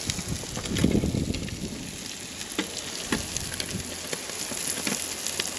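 Burgers and halloumi slices sizzling on a gas-fired griddle plate, a steady frying hiss with scattered small pops and crackles of spitting fat.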